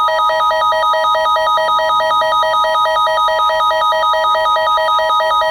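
Emergency Alert System two-tone attention signal: two steady pitches sounding together, layered with a loud warbling alarm tone that flips rapidly between two pitches. It is the alert lead-in to a warning broadcast.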